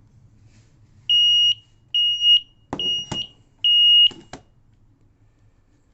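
Flamingo carbon monoxide alarm sounding four loud, high beeps of about half a second each. It has been set off by carbon monoxide building up from a burning carbon-rod pocket heater. A few short knocks fall among the later beeps.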